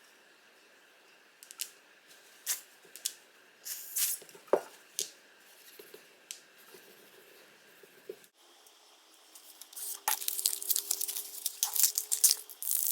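A series of separate sharp clicks and taps, like small hard objects being handled and set down, then, about ten seconds in, a denser run of quick clicks and scraping over a louder hiss.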